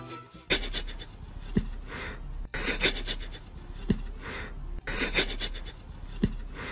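Rhythmic breathy panting, about one breath a second, with a short low blip every couple of seconds.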